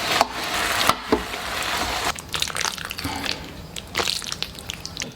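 Eggplant and potato braising in a wok with soybean paste, sizzling and bubbling wetly as a spatula stirs and mashes it, with a few sharp clicks of the spatula. About two seconds in the sizzle drops away, leaving lighter clinks and scrapes.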